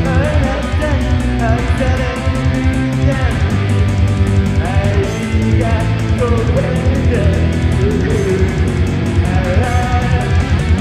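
A live rock band plays loud and continuously: distorted electric guitar, bass guitar and drums with quick cymbal hits, and a bending melody line on top.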